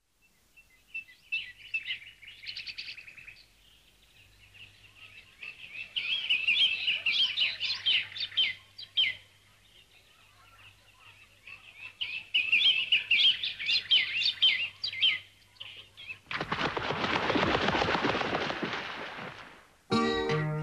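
Bird sound effects on a record: small birds chirping and twittering in two long bursts. Then comes about four seconds of rushing, fluttering noise, the sound of a flock's wings as it takes off.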